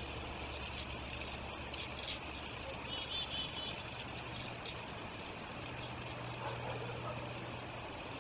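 Steady rushing of river water with a low hum of a vehicle engine running, and a quick run of four high chirps about three seconds in.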